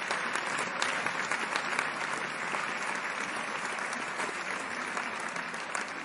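A large theatre audience applauding: dense, many-handed clapping that holds steady throughout.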